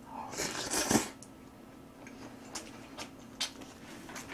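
A mouthful of spicy stir-fried instant noodles slurped in during the first second, followed by quiet chewing and a few small clicks.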